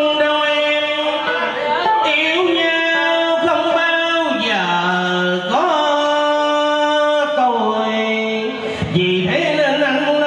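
A man singing Vietnamese cải lương (reformed opera) in long, drawn-out notes with vibrato that slide slowly down and back up in pitch, accompanied by electric guitar.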